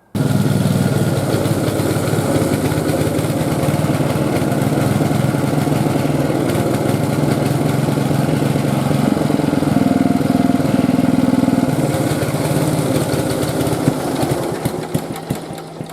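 Rover Colt 8 ride-on mower's engine running, newly started after months of cranking without starting and not running well. Near the end it goes uneven, stuttering, and drops away.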